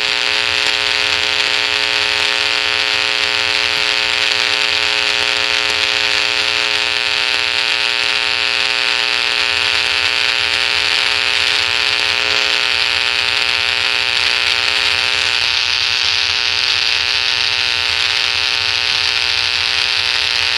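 Electrical buzz: a steady hum with many evenly spaced overtones and a bright hiss above it, unchanging in pitch and loudness throughout.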